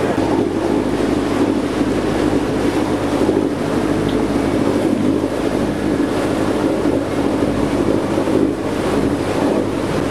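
A fishing boat's inboard engine running steadily with a low hum, mixed with wind on the microphone and the wash of the sea along the hull.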